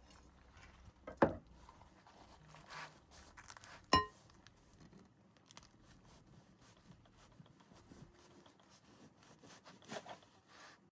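Cooking utensils being handled: a sharp knock about a second in, then a short ringing clink of metal or glass about four seconds in, with faint small clicks and rustles between.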